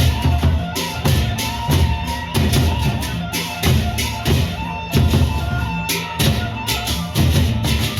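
Gendang beleq ensemble playing an opening piece: large Sasak barrel drums beating a dense, driving rhythm, with cymbal crashes several times a second and a held melodic line above.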